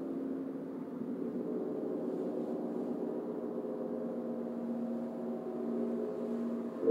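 Hanging gongs ringing in a sustained, shimmering wash, kept going with mallets. A louder stroke comes in right at the end.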